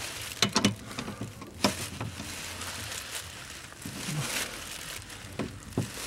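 Scattered clicks and light knocks of a hand tool working on metal fittings under a van by its fuel tank, a few sharp ones near the start and near the end, over a steady hiss.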